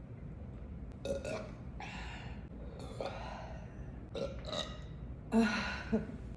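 A woman burping about five times in a row, each burp short with a brief gap between, the loudest near the end: gas brought up after chugging carbonated seltzer.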